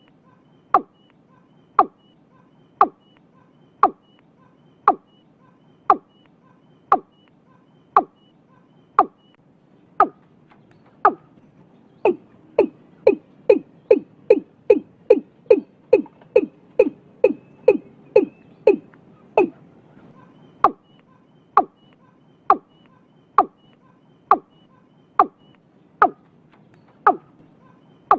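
Watercock calling: a series of short, evenly spaced notes about one a second that speeds up to about three a second around twelve seconds in, then slows back to about one a second some eight seconds later.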